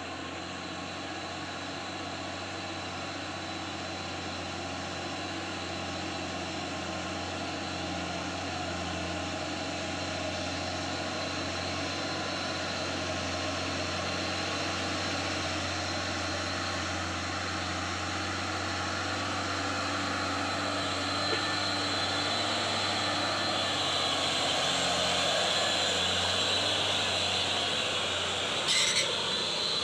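Mitsubishi Fuso Fighter HD truck's diesel engine running steadily as the truck drives over a dirt road, growing louder as it approaches and passes close. A short hiss comes near the end.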